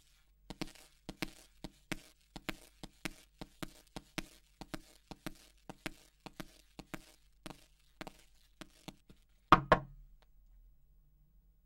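Shoe footsteps on a hard tiled corridor floor, about two steps a second. Near the end comes a brief, louder knocking.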